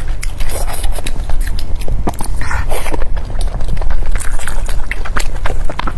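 Chewing and biting of braised pork belly: many short mouth clicks, with a brief rasping noise just before the middle.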